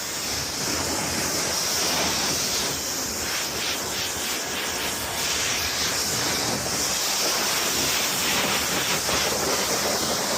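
Pressure washer spray gun shooting a steady high-pressure jet of water onto a car's bodywork.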